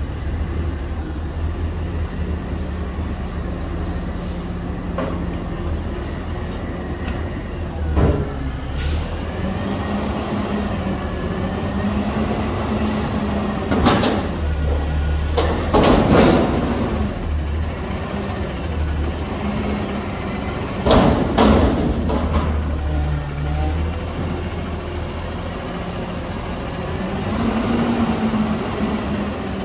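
Peterbilt front-loader garbage truck emptying a dumpster: the engine runs steadily and revs with a whine as the hydraulic arms lift the bin over the cab and lower it again. Several metal clangs and bangs as the bin is dumped, the loudest about halfway through and again about two-thirds through.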